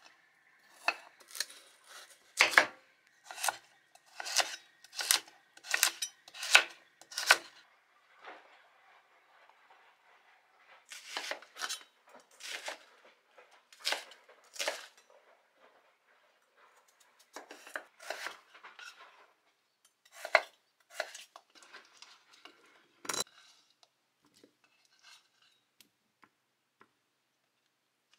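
Kitchen knife chopping on a cutting board: a steady run of quick strokes for about the first seven seconds, then slower, scattered cuts and taps.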